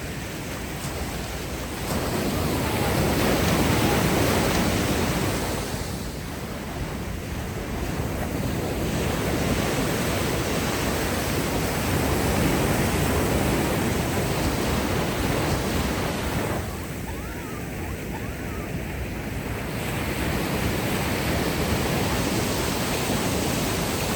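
Ocean waves washing onto a beach, the surf swelling and easing several times.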